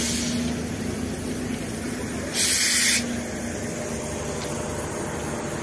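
Compressed air hissing from a stopped train's air system in two short bursts, each about half a second: one right at the start and one about two and a half seconds in. A steady low rumble runs underneath.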